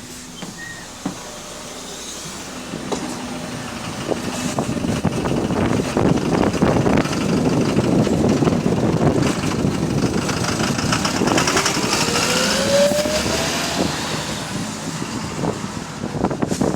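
Bus engine working hard as the bus pulls away and gathers speed, with a knocking beat through it that is put down to rod knock. It grows louder over the first half, and a whine rises in pitch near the middle before the engine note eases off.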